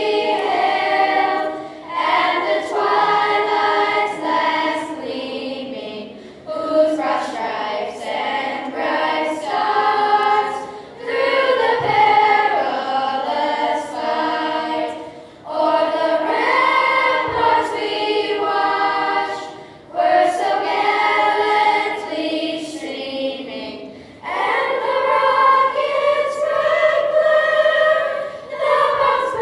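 A school choir singing in phrases of about four seconds each, with short breaks between them.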